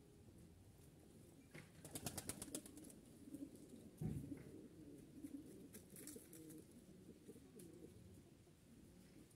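Pigeons cooing faintly and continuously. A quick burst of rapid clicks comes about two seconds in, and a dull thump about four seconds in.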